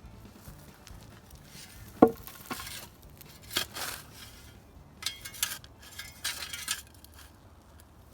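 Metal shovel blade digging into dry, stony dirt: a sharp clink about two seconds in as it strikes, then several short scrapes and crunches of soil being cut and moved.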